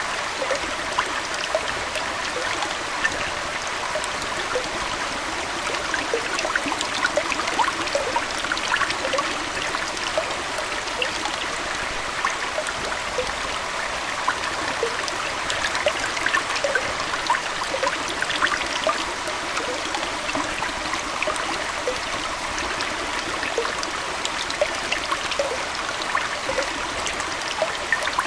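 Aquarium water trickling and splashing steadily, with a constant scatter of small plops and bubbling.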